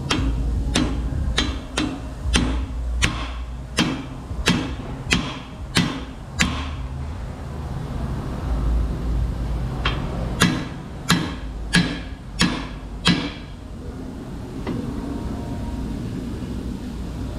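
Hammer blows driving a new U-joint bearing cap into a driveshaft yoke: a run of about ten sharp metallic strikes, a pause of a few seconds, then about six more. The cap is not yet fully seated.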